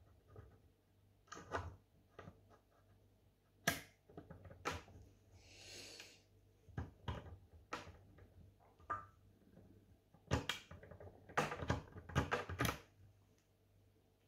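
Sharp metallic clicks and taps of a lock-opening tool being worked inside a Mottura C28 European profile cylinder clamped in a vise, opening it without damage. A short scraping rasp comes about six seconds in, and a quick run of clicks comes near the end as the tool is drawn out.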